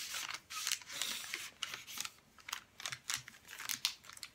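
Paper and plastic stationery being handled and shuffled: irregular light rustles and small clicks.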